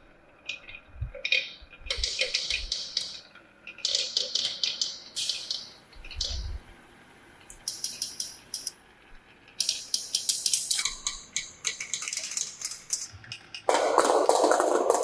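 Marbles clattering down a plastic marble run: bursts of rapid clicking, each a second or two long, with a louder, lower rolling rattle starting near the end.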